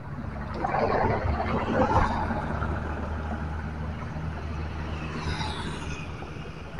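Street traffic: a motor vehicle passes close by, louder about a second or two in, over a steady low engine hum, with a short falling high whine around five seconds in.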